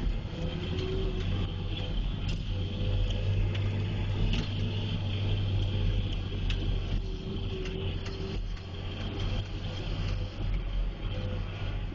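Cat 140H motor grader's diesel engine running steadily under load as its V-plow pushes snow and slush, with scattered short clicks and rattles over the drone.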